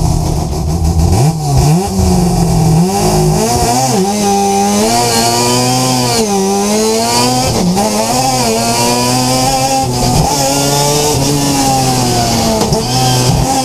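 Mazda RX7's rotary engine at full throttle. Its pitch climbs steadily and then drops sharply at each gear change, through several changes.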